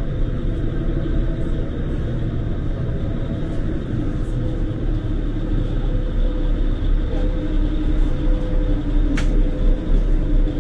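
Steady low drone of a passenger ferry's engines heard inside the cabin, a dense rumble with a faint steady hum on top. A single light click about nine seconds in.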